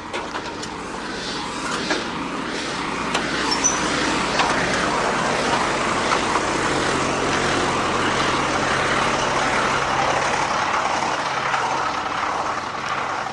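Road construction machinery: a heavy engine running under a loud, noisy clatter and rumble, growing louder over the first few seconds and easing off near the end.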